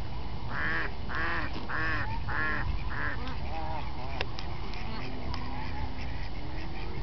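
Waterfowl calling at a lake: a run of five loud calls about half a second apart in the first three seconds, then fainter scattered calls, over a steady low rumble.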